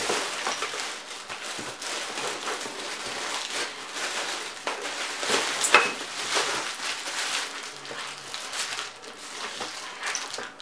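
Plastic packaging crinkling and rustling as plastic-wrapped telescope-mount accessories are handled and pulled from a cardboard box, with a sharp click a little past halfway.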